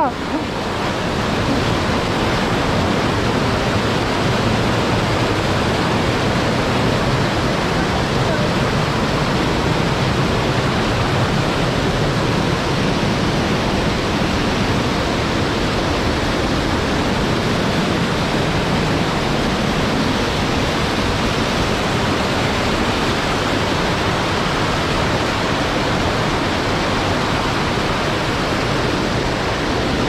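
Waterfall pouring and splashing over boulders, a loud, steady rush of water.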